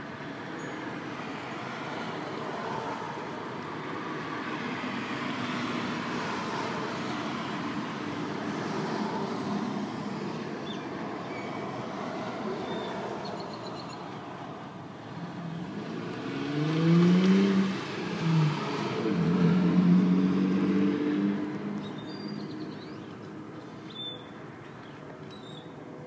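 A road vehicle passing close by over a steady background of distant traffic noise. Its engine climbs in pitch as it speeds up, then holds a steady tone for a few seconds before fading away.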